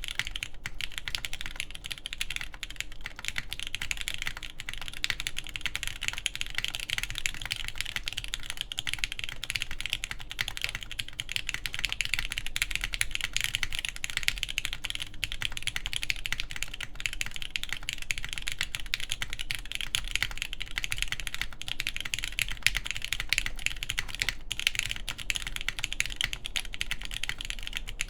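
Continuous fast typing on a TKD Pt 1/75 mechanical keyboard with lubed Everglide Tourmaline switches, a forged carbon fiber plate and GMK keycaps: a dense, unbroken stream of key clacks.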